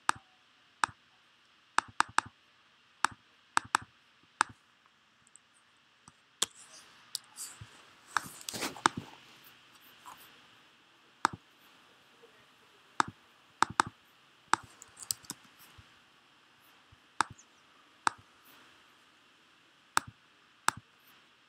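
Computer mouse clicks, sharp and single, coming irregularly about once every second or two, with a denser flurry of clicks and faint rustling about seven to nine seconds in.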